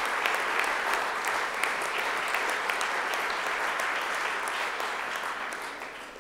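Audience applauding: a dense spread of claps that tapers off near the end.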